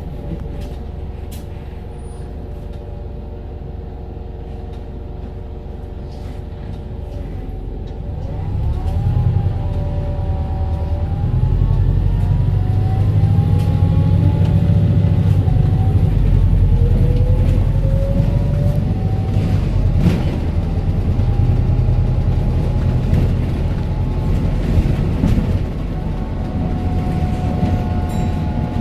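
Volvo B5TL double-decker bus with a ZF gearbox running under way: a low engine drone with several whining tones that slide up and down in pitch, getting louder about eight seconds in as the bus pulls harder.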